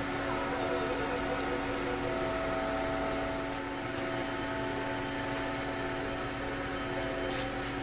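A steady mechanical drone with several constant tones, with a few light clicks near the end.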